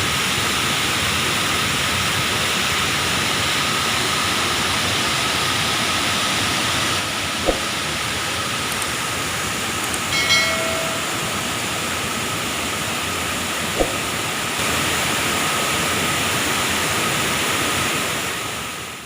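Water rushing steadily over a river waterfall, an even hiss, with a couple of small clicks and a brief chirp around the middle; it fades out at the end.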